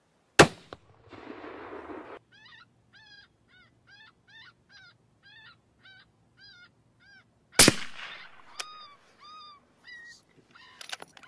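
Two gunshots about seven seconds apart, each a single loud crack. Between them comes a run of short, evenly repeated high chirping calls at about two to three a second. A few more chirps and some sharp clicks follow the second shot.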